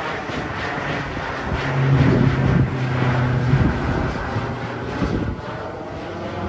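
Small propeller airplane flying overhead: a steady engine drone with a low hum, loudest about two seconds in and fading toward the end as it moves away.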